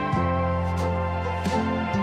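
Instrumental background music, sustained notes shifting in pitch every half second or so.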